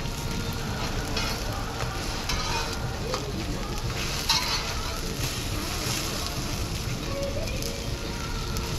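Pancake pieces sizzling in oil on a pot-lid griddle, a steady frying hiss. A utensil scrapes and knocks against the griddle now and then as the pieces are moved, most sharply about four seconds in.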